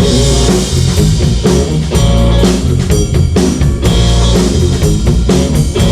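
Live blues-rock band playing an instrumental passage between vocal lines: electric guitar, bass and drum kit, with a steady beat of drum and cymbal hits.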